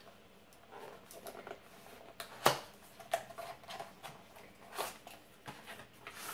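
Product packaging being handled by hand: light rustling with scattered short clicks and taps, the sharpest about two and a half seconds in.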